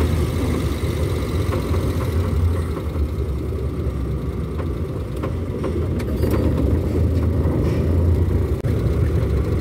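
Engine and road rumble of a vehicle driving along, heard from inside the cabin: a steady low drone.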